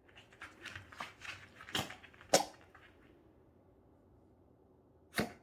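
A puppy sneezing: a quick run of short noisy breaths that builds to two sharp sneezes about two seconds in, then one more sneeze near the end.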